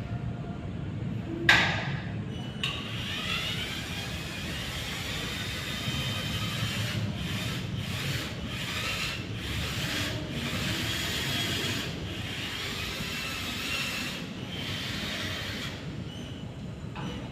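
A sharp knock, then a tool scraping into wood in uneven stretches broken by short pauses.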